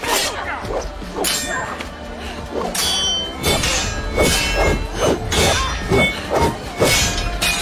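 Steel swords clashing in a sword fight: about a dozen ringing metallic clangs, a few spread out at first and then in quicker succession from about three seconds in.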